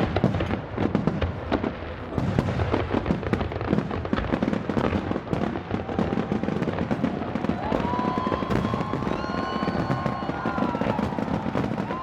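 Fireworks display: many shells bursting and crackling in quick, irregular succession. A steady whistle-like tone is held for a few seconds past the middle.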